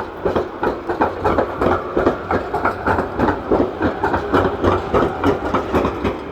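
Wheels of a rail vehicle, a train or tram, clattering over rail joints in a steady, loud clickety-clack of about three clacks a second over a low rumble. The clatter stops near the end.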